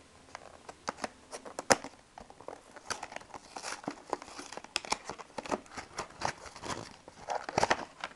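Trading-card starter deck packaging being torn open and handled: irregular crinkling, tearing and rustling with many sharp clicks and snaps.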